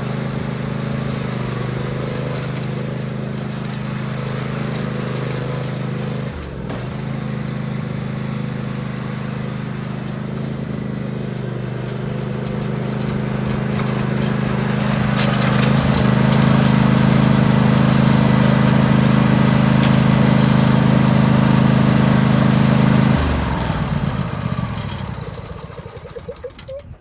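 Ride-on lawnmower engine running steadily, growing louder partway through, then shut off about 23 seconds in and winding down.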